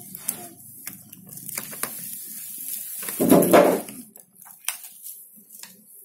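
Paper instruction sheet being handled and lifted off a washing machine's glass lid: rustling and crinkling with scattered small clicks and taps, and a louder rustle lasting about a second that starts about three seconds in.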